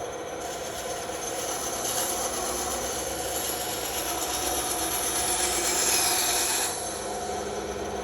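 Bandsaw running steadily while its blade cuts through wood, a rasping hiss on top of the motor hum. The cutting starts about half a second in and stops abruptly near the end, leaving the saw running free.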